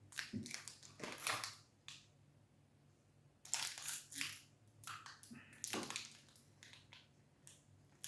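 A protein bar and its plastic wrapper being handled and broken open: a few short, quiet crackling rustles with a pause in the middle.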